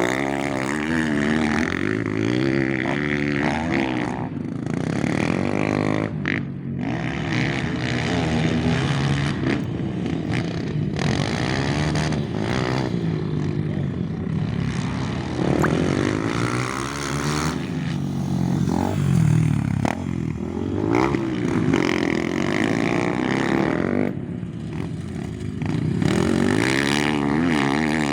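Engine running through an aftermarket performance exhaust, revved up and down repeatedly, its exhaust note rising and falling in pitch several times with brief dips back toward idle.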